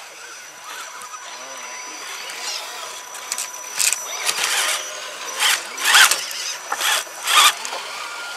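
Small electric motor and gearbox of a radio-controlled scale crawler truck whirring in several short bursts, from about four seconds in, as it climbs over a log.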